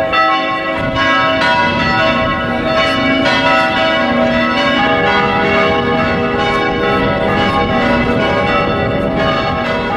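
Church bells pealing: several bells struck over and over, their tones overlapping and ringing on.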